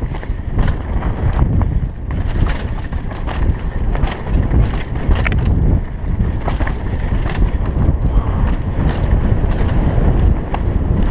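Wind noise on a helmet-mounted camera's microphone during a fast downhill mountain-bike descent, with the rumble of tyres over dirt and rocks and frequent sharp clicks and knocks of the bike rattling over rough ground.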